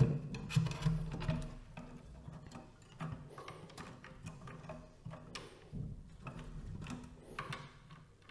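A plastic PC cooler fan and its cable being handled against the metal fins of a tower heatsink: scattered clicks, taps and rustles, the sharpest right at the start.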